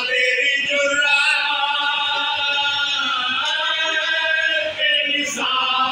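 Group of men's voices chanting a marsiya, the Urdu elegy of Muharram, in unison, holding long drawn-out notes, with one short break for breath near the end.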